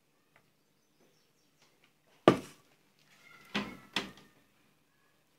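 Metal kitchenware clanking against a large cooking pot while boiled rice is added to a layered biryani: one sharp clank about two seconds in, then two lighter knocks a little over a second later with a brief metallic ring.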